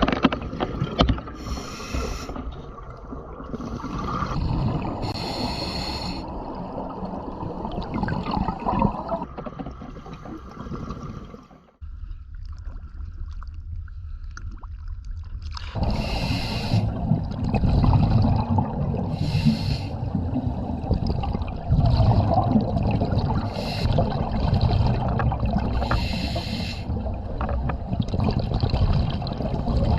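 Scuba diver breathing underwater through a regulator: bursts of exhaled bubbles about every two to three seconds over a steady low rumble.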